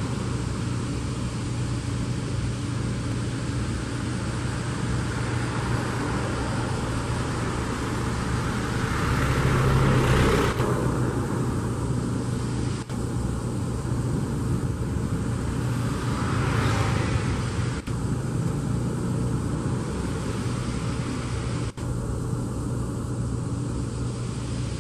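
A boat's engine running steadily with a low hum, under a rushing noise of wind and water that swells twice.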